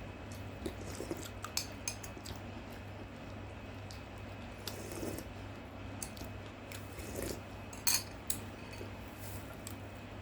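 Spoon and fork clinking on a plate while eating: scattered light clicks, the sharpest about eight seconds in, over a steady low hum.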